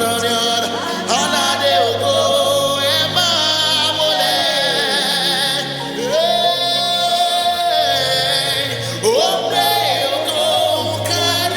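Gospel worship music: a singer's wordless vocal ad-lib, sliding up into long held notes with vibrato, over steady instrumental backing.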